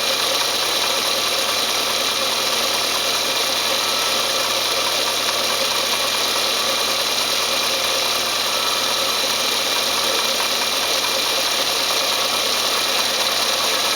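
Car engine running steadily at idle, making an abnormal noise that the owner takes as a sign of coming trouble.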